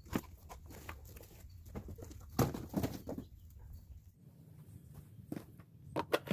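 Unpacking an electric chainsaw: cardboard and packaging rustling and crinkling, with scattered knocks and clicks as parts are handled, a cluster of sharper clicks near the end.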